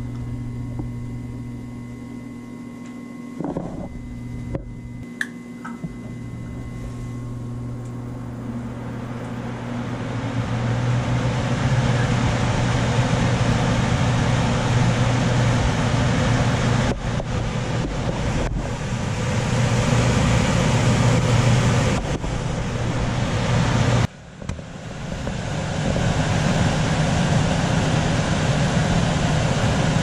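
Manufactured-home gas furnace's ECM blower motor ramping up over a few seconds, after a few light clicks, into a steady rush of air over a low hum. The sound drops out sharply for a moment about three-quarters of the way through, then comes back.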